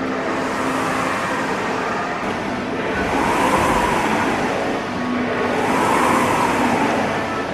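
Rowing machine's flywheel whooshing under steady rowing strokes, the rush of air swelling and fading about every two and a half seconds as each pull spins it up.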